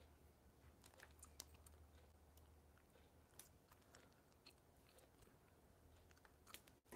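Near silence: room tone with a faint low hum and a scattering of faint small clicks.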